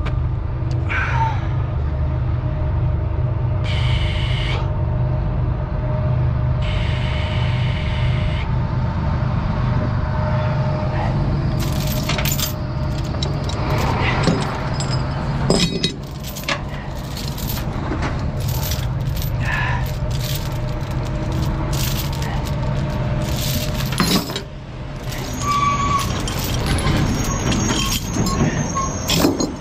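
An idling truck engine runs steadily under two short hisses in the first eight seconds. From about twelve seconds on comes a run of sharp metallic clinks and clanks.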